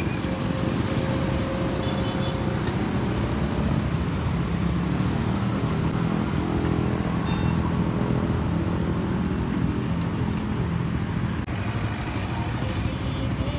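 Street traffic: motorcycles and cars running past, a steady rumble of engines and tyres.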